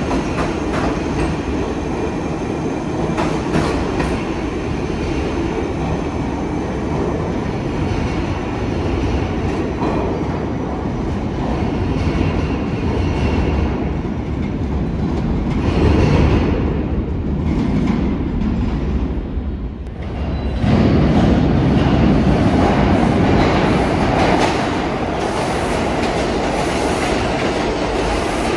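New York City subway train running through the station, with steel wheels rumbling and clattering over the rails. The noise dips briefly about two-thirds of the way through, then comes back louder.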